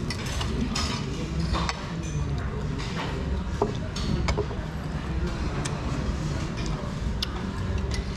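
Forks and spoons clinking against ceramic dinner plates while eating, in scattered sharp clinks, over a steady low background hum.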